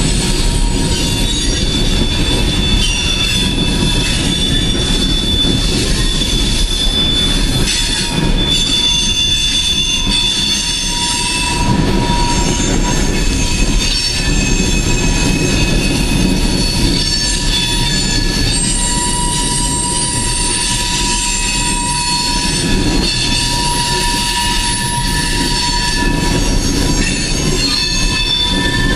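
Coal train's freight cars rolling past, a steady low rumble of wheels on rail with several high squealing tones from the wheels that come and go.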